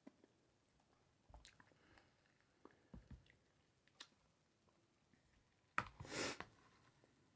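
Faint close-up eating sounds from a person chewing a meal of sausage, rice and cucumber: scattered soft mouth clicks, with a sharper click and a short louder noisy burst about six seconds in.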